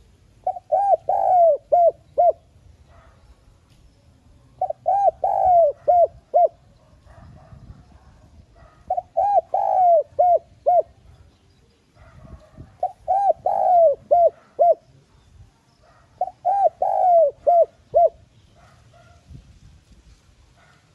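Spotted dove cooing: five phrases, each a run of about five or six short coos that dip in pitch, lasting about two seconds, with a pause of about two seconds between phrases.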